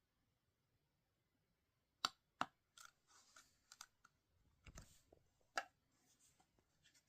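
Sharp clicks and knocks from smoke alarm casings being handled, with light rustling between them, after about two seconds of near silence. There is a dull knock about halfway through.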